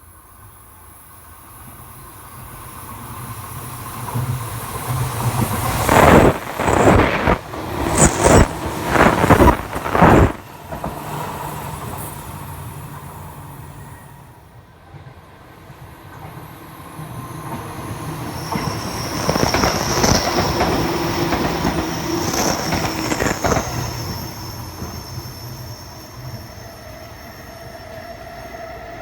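A Seibu Tamagawa Line electric train passes close by. Its rumble builds, then a run of loud wheel clacks over the rail joints lasts a few seconds before it fades. A second swell of train noise follows, carrying a high steady wheel squeal.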